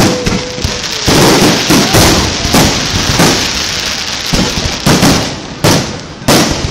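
Aerial fireworks shells bursting overhead: a string of loud bangs, roughly one to two a second, over a continuous rumble.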